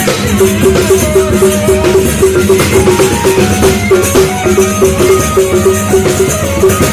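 Loud band music with a steady repeating beat, a short melody line over it, and rattling percussion.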